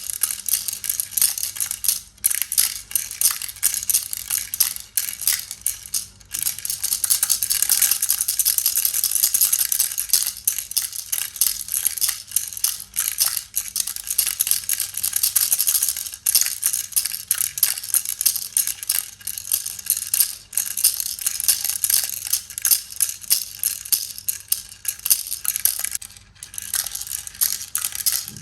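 Baby rattle shaken continuously: a dense, fast clicking of the pieces inside. It breaks off briefly about two seconds in, about six seconds in and near the end, and between about six and sixteen seconds in it is shaken steadily without a break.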